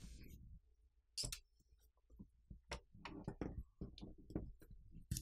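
Faint, scattered small clicks and taps as a SIM ejector pin pops the SIM tray of a Xiaomi Black Shark 3 and fingers slide the tray out of the phone's frame.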